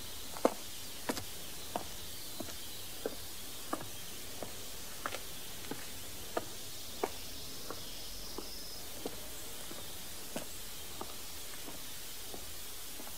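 A series of light, sharp taps or clicks at an uneven pace of about one or two a second over a steady hiss, the loudest about half a second in, getting fainter and further apart toward the end.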